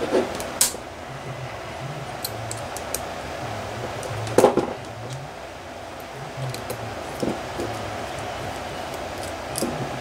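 Small metal clicks and taps of a hex wrench and screws being worked on the cylinder head of an Enya 60-4C four-stroke model engine, while the rocker bracket screws are undone. The loudest click comes about four and a half seconds in.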